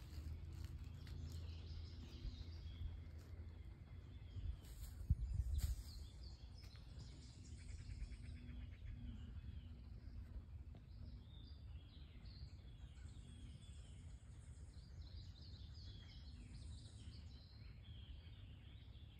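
Woodland ambience: small birds chirping on and off, including a short rapid trill, over a low rumble. A brief low thumping about five seconds in is the loudest sound.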